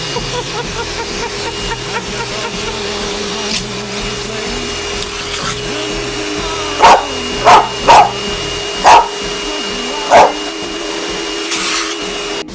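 Vacuum cleaner running with a steady motor whine while a dog barks at its wand attachment, five loud barks in quick succession from about seven to ten seconds in. The vacuum cuts off suddenly near the end.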